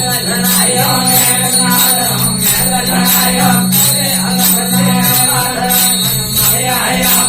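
Rajasthani desi bhajan music without singing: a steady low drone under a wavering melody, with jingling percussion keeping an even beat about twice a second.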